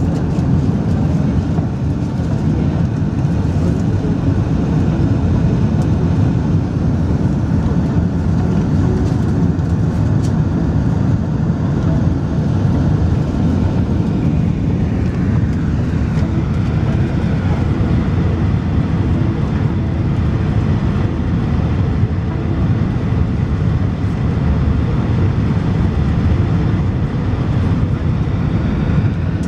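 Steady jet engine and airflow noise heard inside the cabin of a large airliner climbing after takeoff. About halfway through, a whine falls in pitch.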